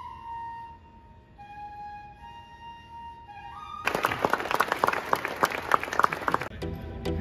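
A solo flute holds a few long, gliding notes, then stops. About four seconds in, the crowd applauds for a couple of seconds. Near the end, rhythmic background music begins.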